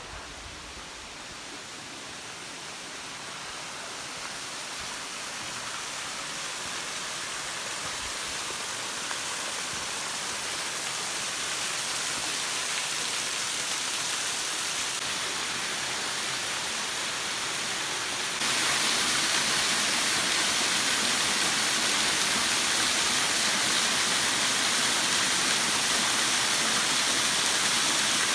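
Waterfall rushing: a steady hiss of falling water that grows gradually louder, then jumps louder about two-thirds of the way through.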